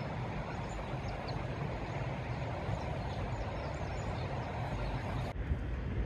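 Steady rushing outdoor noise with a low, uneven rumble underneath.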